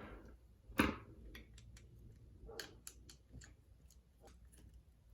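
Small plastic and metal clicks and ticks from handling a replacement plug and its parts, with one sharper click about a second in and scattered lighter ticks after it.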